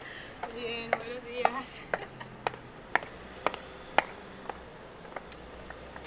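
A woman's footsteps on paved sidewalk tiles: sharp, regular heel clicks about two per second, growing weaker and sparser after about four seconds.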